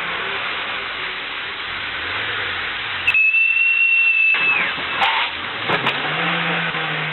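A steady hiss with one high, clear whistle held for about a second and a half a little after three seconds in, dropping in pitch as it ends, followed by a few sharp clicks.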